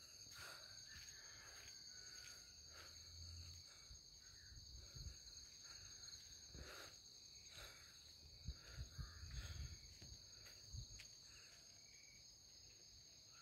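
Faint, steady high-pitched trill of night insects such as crickets, with soft low thumps from footsteps and the handheld phone, a cluster of them about eight to ten seconds in.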